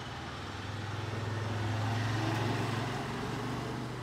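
A low engine hum that swells to its loudest about two seconds in, then fades.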